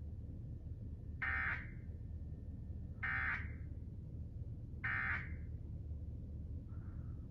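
Emergency Alert System SAME digital data tones: three short, identical bursts of warbling data, about two seconds apart, the end-of-message code that closes the alert. A fainter blip follows near the end, over a steady low hum.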